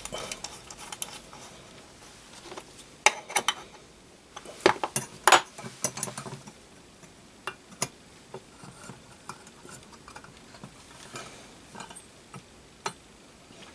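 Small brass parts clinking and tapping as a homemade brass Heron-type steam engine is handled and hung on its brass stand: a cluster of sharp clicks in the first half, then a few scattered taps.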